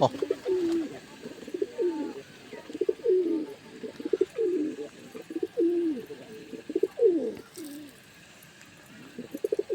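Domestic pigeons cooing repeatedly in low, falling, throaty phrases, about one a second, with a brief lull shortly before the end.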